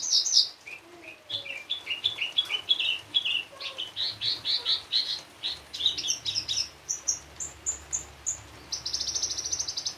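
Horsfield's bush lark (branjangan) singing a fast, varied song rich in mimicked phrases: strings of short, rapidly repeated down-slurred chirps, ending near the end in a rapid, even trill.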